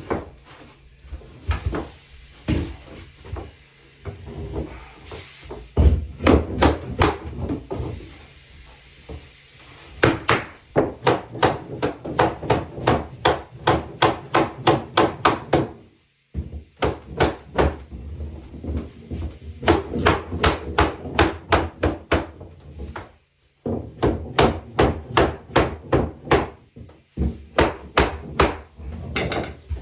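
Hammer driving nails into wood: quick runs of blows, about three a second, broken by short pauses.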